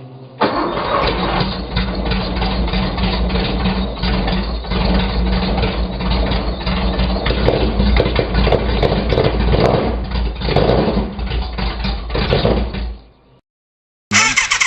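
A big engine started from cold, running loud and uneven. It cuts off a little before the end, and after a moment's silence a second engine is heard running with a fast, even pulse.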